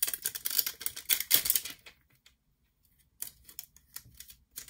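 Sheet of clear plastic stamps crackling and crinkling as a stamp is peeled off its backing. After a short pause come a few fainter light clicks.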